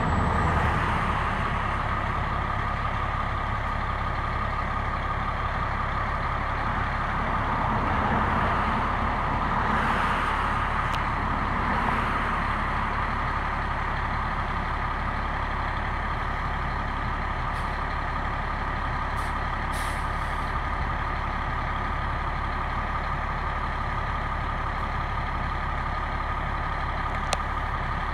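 Fire engine's diesel engine running steadily, with a steady whine over a low rumble that swells slightly a few seconds in.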